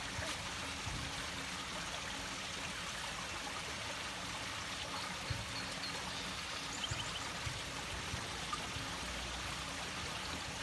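Small stone-lined creek's water running steadily, a continuous even rush.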